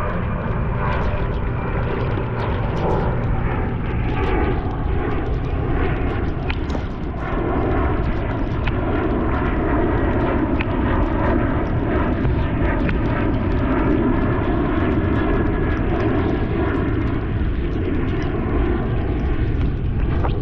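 Airplane flying over: a steady engine drone with faint tones that shift slowly in pitch as it passes, over a constant low rumble.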